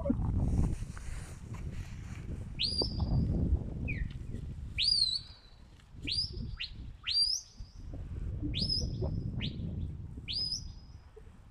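A sheepdog handler's whistle commands: a string of about seven sharp whistles, most swooping up and then held, a few falling away, directing the working sheepdog around the sheep. Wind rumbles on the microphone underneath.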